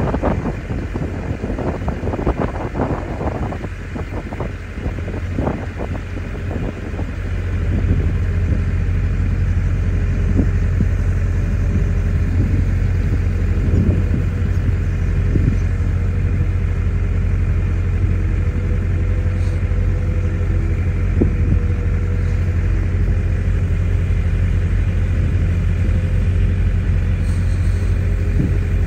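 A steady, deep engine drone comes in about seven seconds in and holds, heard from inside a car on a moving river cable ferry. Before it, wind buffets the microphone.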